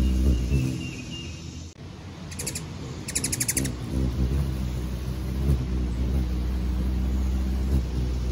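Ruby-throated hummingbird's wings humming in hover, a low steady hum that fades about half a second in and returns about four seconds in. In the gap come two short runs of rapid high chittering.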